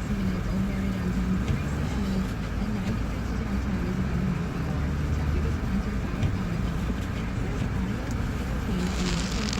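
Steady low rumble of a car's engine and tyres, heard from inside the cabin while driving. There are a few sharp clicks near the end.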